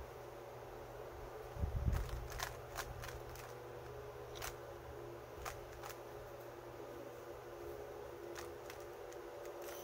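Plastic clicks and taps of a GAN 3×3 speedcube being turned by hand, scattered irregularly, with a louder low thump about two seconds in, over a steady faint hum.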